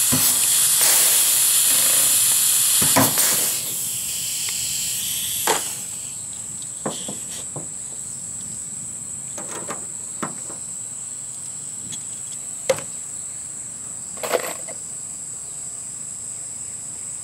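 A loud hiss for the first three or four seconds, then a steady, high-pitched insect chorus with a handful of scattered sharp clicks and taps from riveting work.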